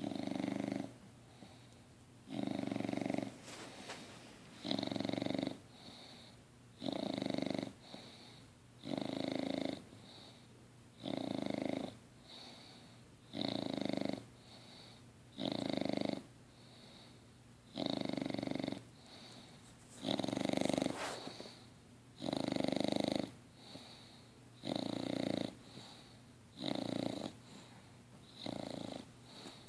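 Six-month-old English Bulldog snoring in her sleep: a regular, rasping snore about every two seconds, each lasting about a second, with quiet breathing between. The loud airway noise is typical of the breed's short, flat muzzle.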